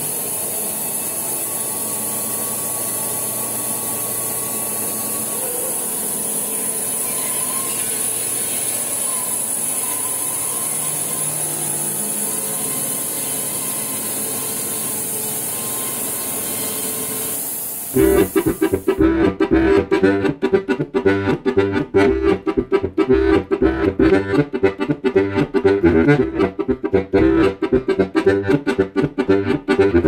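An electric band sawmill running steadily with a high whine as its saw head travels along the log. About eighteen seconds in, loud rhythmic instrumental music takes over.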